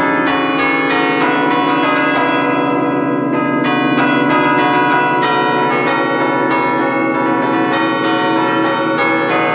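Church bells struck by hammers worked from a manual bell keyboard, playing a fast tune of several strokes a second, each bell's tone ringing on over the next strikes.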